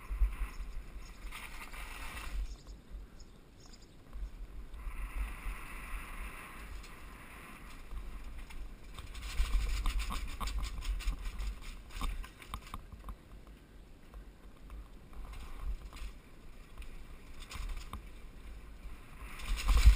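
Wind buffeting the microphone of a helmet-mounted camera on a downhill mountain bike descent, with the bike and its tyres rattling and knocking over cobblestones, busiest around the middle of the run.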